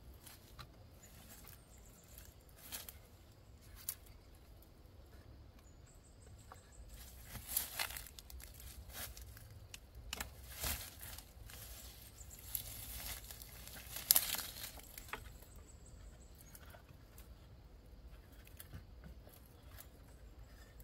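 Rustling and crackling with scattered sharp snaps, the loudest about fourteen seconds in.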